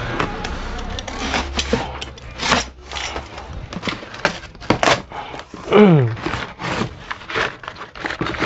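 Utility knife slicing through packing tape and cardboard, then stiff cardboard flaps scraping and rubbing as the box is pulled open. A short falling squeal comes about six seconds in.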